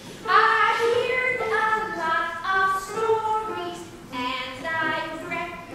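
A woman singing a show tune solo in a lively, theatrical style, her voice holding and bending notes in phrases with a brief break about four seconds in.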